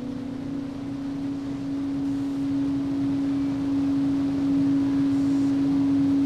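A steady low drone tone held on one pitch, slowly swelling louder, over a soft noisy wash.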